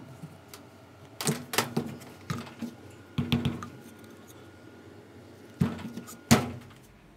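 Clicks and knocks of a salt lamp's plastic bulb holder and wooden base being handled and fitted together, in several short bunches, with the loudest single knock near the end.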